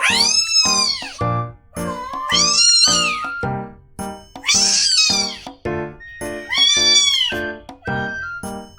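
A kitten meowing four times over background music, each meow a long, high call that rises and then falls in pitch.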